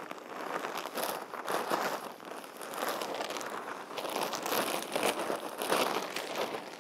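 A plastic bag of manure crinkling and rustling as it is tipped and shaken empty over a raised garden bed.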